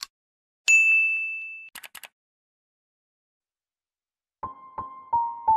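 A single bright ding from the logo animation, struck once and ringing out for about a second, followed by a few faint ticks. Near the end, soft piano music begins with a run of single notes.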